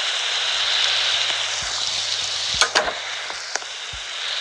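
Heavy rain falling, a loud steady hiss, with a few sharp clicks a little past the middle.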